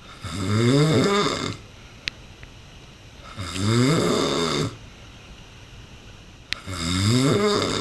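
A man snoring loudly in his sleep: three long snores about three seconds apart, each opening with a rise in pitch. A couple of short clicks fall in the quiet between them.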